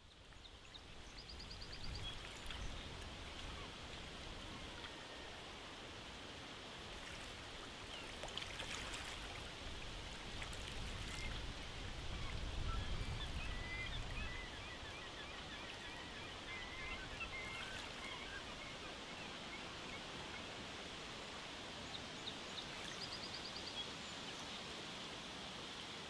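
Outdoor nature ambience fading in over the first couple of seconds: a steady rushing like running water, with scattered bird chirps and a short high trill near the start and again near the end.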